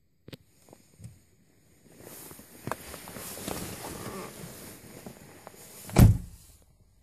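Someone getting into the driver's seat of a 2008 Toyota Corolla, with a few seconds of rustling and shuffling, then the driver's door shutting with a solid thump about six seconds in.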